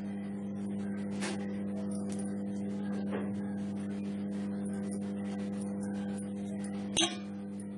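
Steady low hum, with a few faint clicks and one short, sharp clink about seven seconds in.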